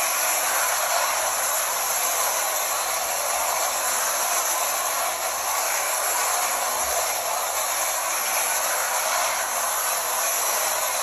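Wind-up tin toy train running steadily around its tin track: the clockwork motor whirring and the wheels running on the sheet-metal rails.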